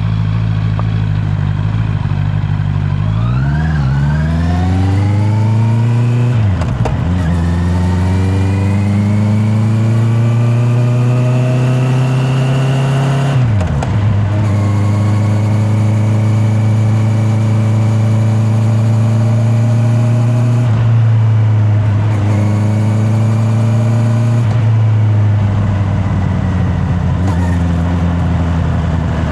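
Honda CB650R's inline-four engine under way: the revs climb, drop sharply and climb again at quick gear changes in the first half, then hold steady at cruising revs and ease off slightly near the end. Picked up by a microphone in the rider's back pocket.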